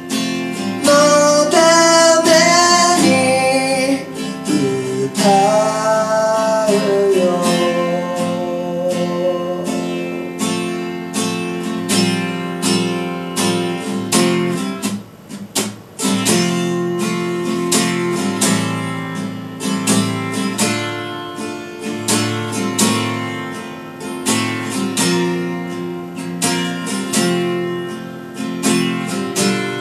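Live acoustic guitar, strummed, with a man singing over it for roughly the first nine seconds. After that the guitar carries on alone in an even strumming rhythm, with a short pause about halfway through.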